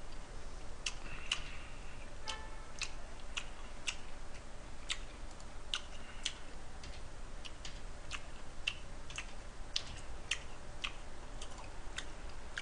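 Scattered small pops and crackles of pork fat spitting as slices of pork cook on a tabletop grill plate, coming irregularly one to three times a second over a faint sizzle.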